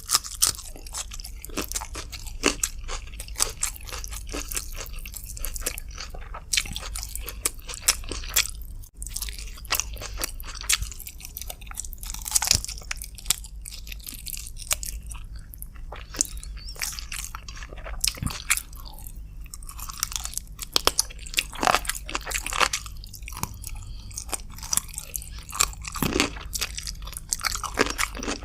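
Close-miked eating sounds of chicken with rice: wet chewing, lip smacks and crunchy bites, a dense irregular run of clicks with no talking.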